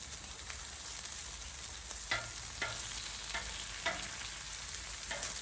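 Bacon and chicken breast sizzling steadily on a Blackstone flat-top griddle as the bacon crisps, with about five short clicks of a utensil against the griddle.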